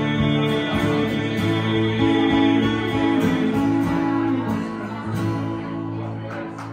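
Two acoustic guitars strumming the closing instrumental bars of a country song without vocals, the last chord left to ring and fade away over the final couple of seconds.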